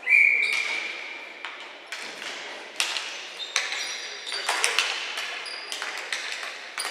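A sharp ringing ping right at the start that fades over about a second, then the clacks of sticks and the ball on the concrete floor as the faceoff is taken and ball hockey play resumes.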